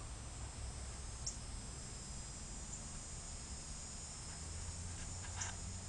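Quiet backyard ambience: a faint, steady high-pitched hum over a low rumble, with two short high chirps, one about a second in and one near the end.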